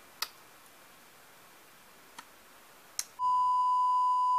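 Steady, loud test-card beep, a single unchanging tone of the 'please stand by' kind, cutting in about three seconds in. Before it, only quiet room tone with a few faint clicks.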